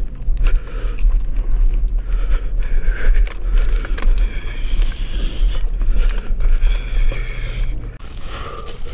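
Climber ascending a tree on a rope: scattered clicks and scrapes of climbing gear and rope against the bark, over a heavy low rumble of wind and handling noise on the helmet-mounted camera.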